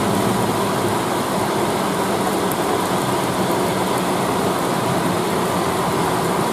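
Heavy rain hissing steadily, with the low, steady hum of a Scania K310 coach's engine creeping along in slow traffic.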